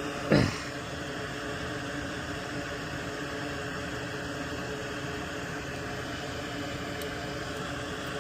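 A single short, sharp cut about a third of a second in, from a cutting tool going through a line on an appliance control board, over a steady hiss and low hum of room equipment.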